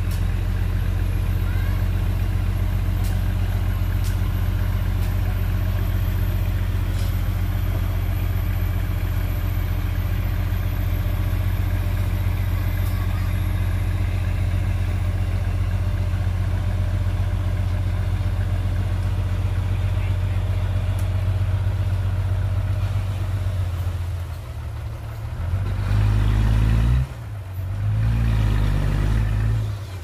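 Heavy diesel engine of earthmoving equipment running with a steady low drone. Near the end the engine note changes and the sound rises and falls in a few uneven surges, with one sharp drop, as the machine works under changing load.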